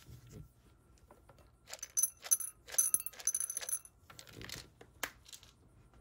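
Dry cat food clattering and rattling into a ceramic bowl, about two seconds of dense clicking that starts about two seconds in, followed by a single sharp click.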